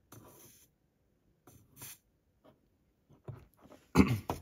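Short scratchy hisses as a soldering iron's chisel tip drags flux and white metal solder along a wagon kit's corner joint, then light clicks and a loud double knock near the end.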